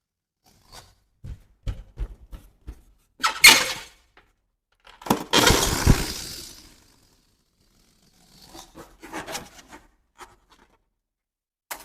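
Balloons popping: small rubbery clicks and taps, then a sharp loud pop about three and a half seconds in and a second loud pop about five seconds in that trails off over a second. Fainter crackling follows near the end.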